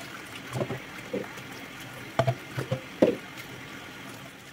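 Kitchen tap running into a stainless steel sink while dishes are rinsed, with about six short knocks and clatters of dishes being handled, the loudest about three seconds in.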